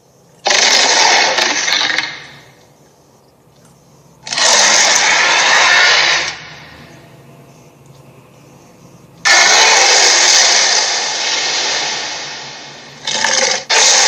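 Loud bursts of hissing noise, each starting suddenly: one at the start that fades after about a second and a half, one about four seconds in that lasts two seconds, then a long one that slowly fades and a short one near the end, followed straight away by another.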